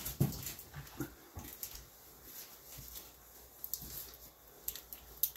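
Faint knocks and rustles of a cardboard shipping box being picked up and handled, with a few short taps scattered through.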